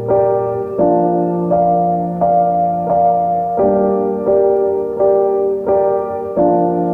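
Background music: a piano or electric-piano melody with a chord or note struck about every three quarters of a second.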